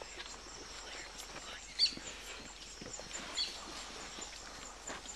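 Bush ambience: a steady high insect chorus, two short bird chirps about two and three and a half seconds in, and scattered footsteps and rustling as people walk through tall grass.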